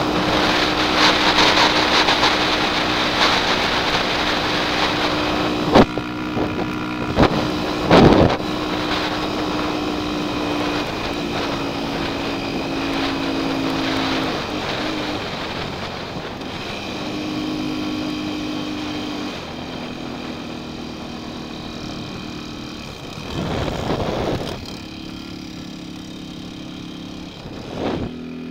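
Honda XR200R dirt bike's four-stroke single-cylinder engine running under way, its pitch stepping up and down, with wind rushing over the helmet microphone. A few sharp thumps come about six to eight seconds in, and the sound grows quieter toward the end.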